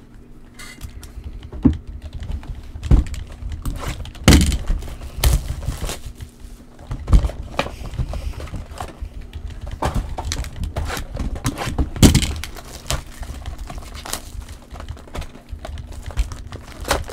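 Trading cards being flicked through and handled by hand: a run of irregular light clicks and rustles, with a few duller knocks about 4 and 12 seconds in as a card box and packs are picked up and set down.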